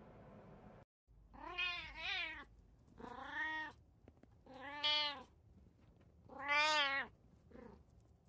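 Brown tabby cat meowing repeatedly: about six meows in a row, each rising then falling in pitch. The fifth is the loudest and the last is faint.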